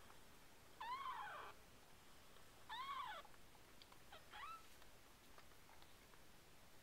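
Two-week-old RagaMuffin kitten mewing three times, high thin mews each under a second long, about one and a half to two seconds apart, each sliding up and down in pitch; the last is the shortest.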